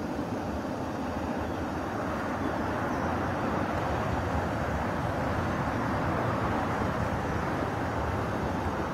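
MSR Pocket Rocket canister stove burner running at a steady hiss, heating a pot of water toward the boil.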